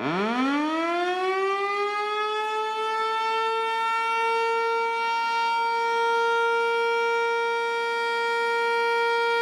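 American Signal Corporation T-121 outdoor warning siren starting up on its Alert signal. Its pitch rises quickly over the first two seconds or so, then settles into one steady tone.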